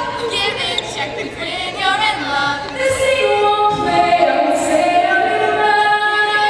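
Teenage girls' voices singing a cappella, one lead voice on a handheld microphone with the group joining in. The singers settle into long held notes over the last second or so.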